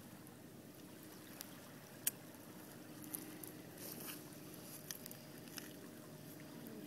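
Faint scattered clicks of shells being scraped and shifted by a hand digging in a shell midden, over a faint steady low hum.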